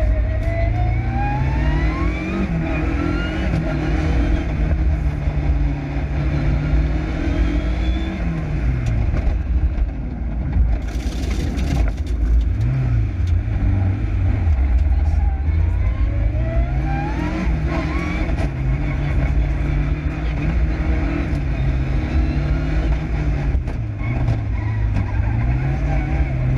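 Lancia Delta Integrale Group A rally car's turbocharged four-cylinder engine, heard from inside the cabin, accelerating hard and shifting, its note repeatedly climbing and dropping with a rising whine as it pulls. A brief hissing burst comes about eleven seconds in.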